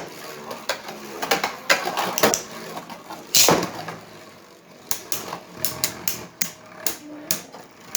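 Spinning Beyblade tops, one of them 3D-printed, clashing in a plastic stadium: a run of sharp clicks and knocks, with louder hits at the start and about three and a half seconds in, and quicker clicks of about two or three a second later on.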